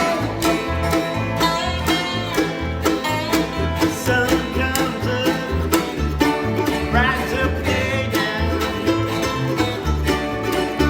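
Music with plucked string instruments in a bluegrass style over a steady, stepping bass line.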